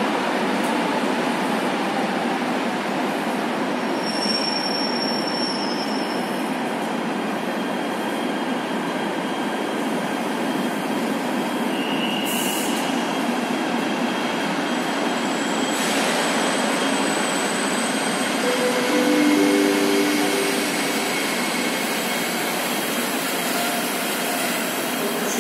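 Passenger train hauled by a NEWAG Griffin E4DCUd electric locomotive rolling slowly through the station: steady rolling noise with brief wheel squeals at changing pitches, some high and some lower, scattered throughout and a little louder about three quarters of the way in.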